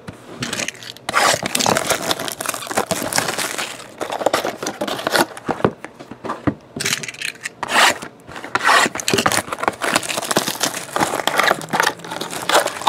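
Plastic shrink-wrap being torn and crinkled off a sealed cardboard box of trading cards, with the box sliding and scraping in the hands. Crackling comes in bursts, with brief pauses in between.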